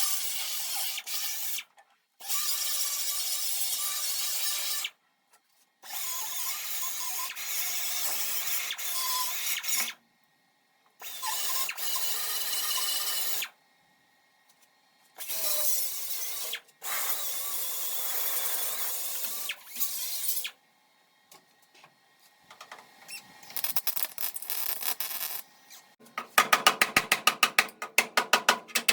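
Welding arc crackling in a series of bursts lasting one to four seconds each, starting and stopping sharply, as seams on a car body's underside are welded. Near the end comes a fast run of sharp ticks.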